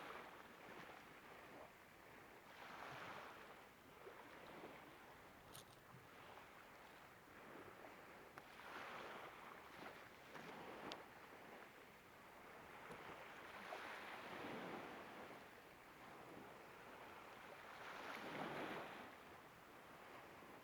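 Faint small waves washing on the shore, swelling and fading every few seconds.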